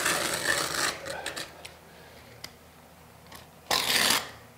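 Utility knife slicing through Schluter Kerdi waterproofing membrane laid in thinset: a cutting stroke for about the first second, a few light clicks, then a second, louder and shorter stroke near the end. He is cutting the membrane in the bench corner so that trapped air can escape and the joint can be sealed with Kerdi-Band.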